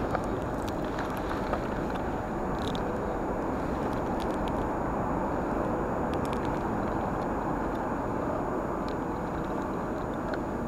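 Steady rumble of road traffic on the highway bridge overhead, with a few faint clicks as the spinning reel is handled.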